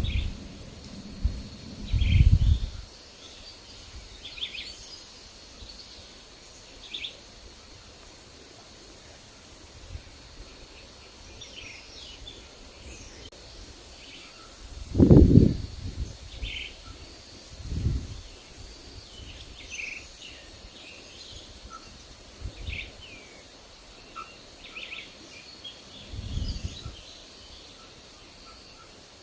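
Forest birds giving short, scattered chirps, over several low gusts of wind, the loudest about halfway through.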